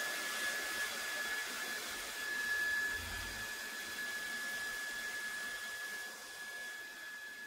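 A 2200-watt hair dryer blowing steadily: a rush of air with a thin high motor whine, growing a little quieter near the end. It is heating a phone's back glass to soften the adhesive beneath it.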